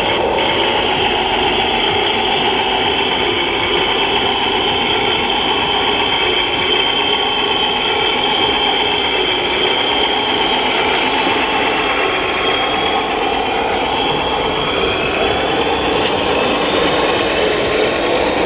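1/14-scale RC truck running steadily with a continuous engine-like drone and motor whine, over the steady din of the hall.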